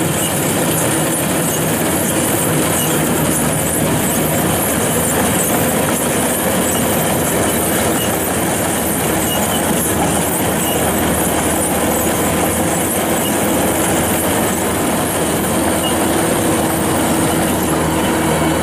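Kubota DC-105X combine harvester working close by, cutting and threshing flattened rice: a steady diesel engine drone under the dense clatter of the header, reel and threshing machinery.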